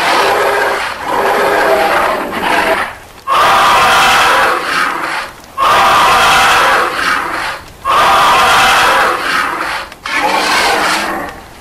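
Dinosaur roar sound effect, repeated over and over: loud, harsh roars of about two seconds each, with short breaks between them.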